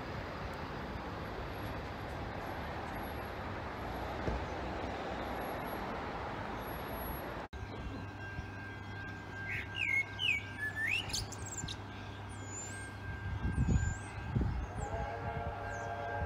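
Steady outdoor noise, like wind on the microphone, for about the first half. Then, after a sudden cut, birds chirp over a low steady hum, and a steady held tone of several pitches comes in near the end.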